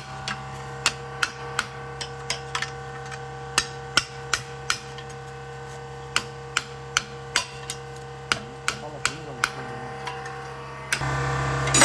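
Hammer taps, sharp and irregular at roughly two a second, over a steady low hum.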